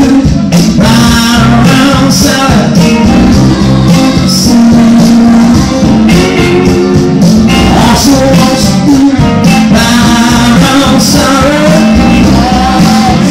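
Live electric guitar and a man's singing, played loud through an amplifier over a steady beat.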